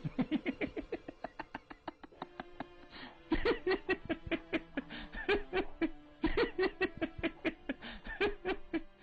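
A man laughing in three bouts of rapid 'ha-ha' pulses, about five a second, each new bout starting roughly every three seconds.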